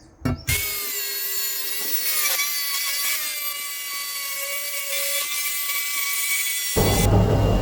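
Power grinder running against spring steel, a steady grinding noise with several held whining tones. Near the end it cuts suddenly to a louder, deeper, rougher noise.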